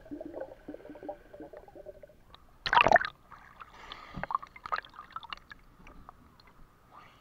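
Water gurgling and bubbling around an action camera as a snorkeler swims underwater and at the surface, with small clicks and trickles throughout and a loud burst of splashing about three seconds in.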